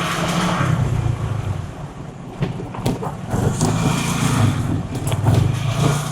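A road vehicle on the move: a low engine and road rumble that eases off about two seconds in and builds again, with a few short knocks.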